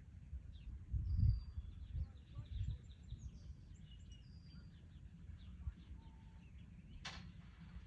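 Small birds chirping over a gusty low rumble, with one sharp click about seven seconds in.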